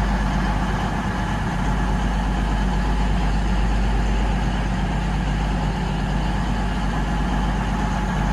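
CrossCountry Voyager diesel train's underfloor engines running with a steady drone and hum, no change in pitch.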